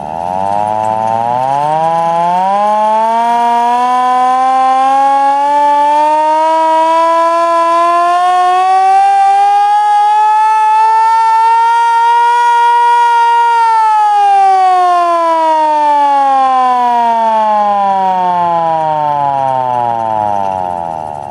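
Vintage Czech air raid siren wailing. It starts low and climbs steadily in pitch for about thirteen seconds, then winds down with the pitch falling steadily until it fades near the end.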